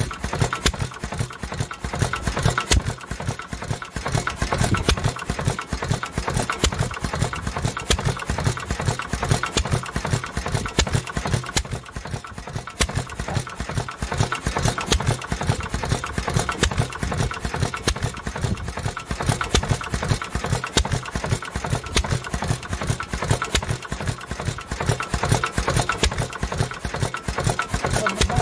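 International Harvester Type M 3 HP hit-and-miss engine running, a steady rapid mechanical clatter of firing and valve gear. It is running with its crankcase breather stuck.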